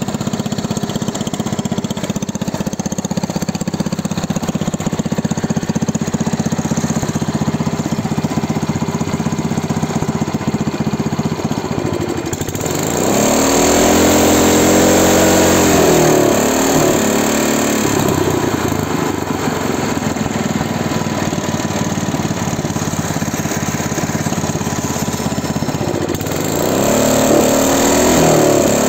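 Kohler 8 hp single-cylinder snow blower engine running steadily. About twelve seconds in it gets louder and speeds up, its pitch swinging up and down for a few seconds, and it rises again near the end.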